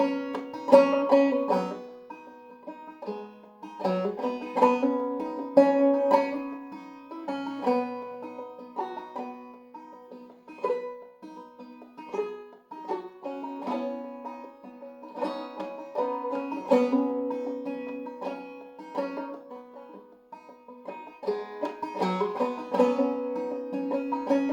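Five-string banjo played clawhammer style in open eCGCD tuning: a solo tune of plucked melody notes over a steady ringing drone, in a rhythmic frailing pattern.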